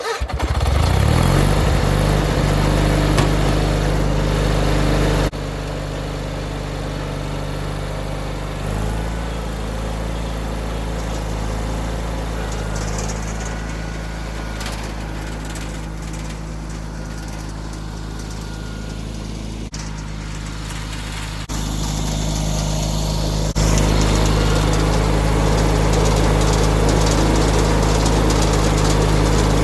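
John Deere 317 garden tractor's twin-cylinder Kohler engine running steadily, coming up to speed in the first second. Its level drops a few seconds in and climbs back up near the end.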